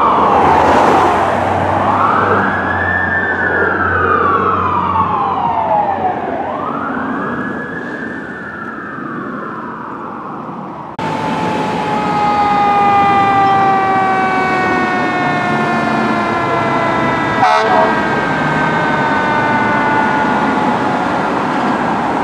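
Fire engine sirens. First a wailing siren rises and falls about every three and a half seconds over a low engine rumble, and fades as the truck pulls away. Then, from about halfway, a second fire engine's siren holds a long tone that sinks slowly in pitch, with a short sharp sound about two-thirds of the way through.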